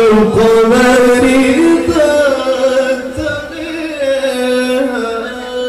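A man's voice reciting the Quran in the melodic mujawwad style, singing one long held, ornamented phrase into a microphone. The pitch steps up and back down in slow turns before the note trails off near the end.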